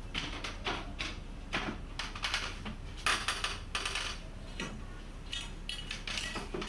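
Irregular light clinks and knocks of crockery and cutlery being handled, a few per second, with a louder cluster about three seconds in.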